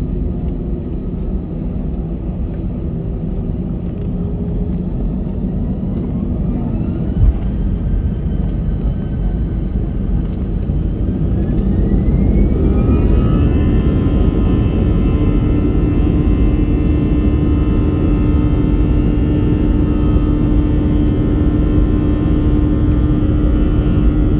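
Airbus A320's CFM56 jet engines heard from inside the cabin, spooling up to takeoff thrust. A whine rises in pitch over several seconds, then settles into a steady high whine over a loud rumble that keeps growing. A single thump comes about seven seconds in.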